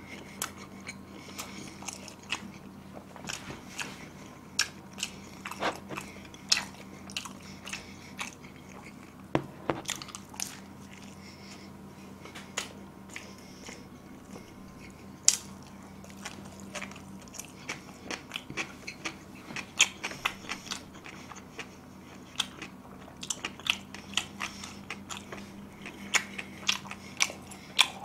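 A person chewing pizza crust close to the microphone: an irregular run of short wet mouth clicks and small crunches.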